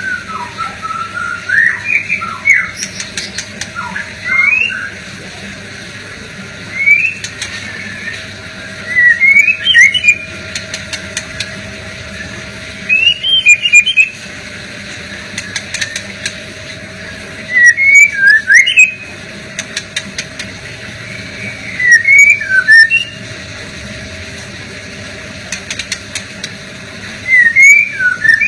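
Male white-rumped shama singing short, loud phrases of gliding whistled notes mixed with sharp clicks, one phrase every four or five seconds. A steady low hum runs underneath.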